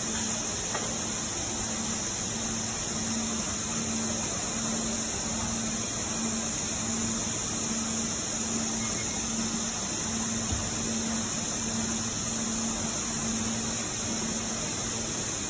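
Steady machinery noise on a factory floor: an even hiss with a low hum that pulses a little over once a second.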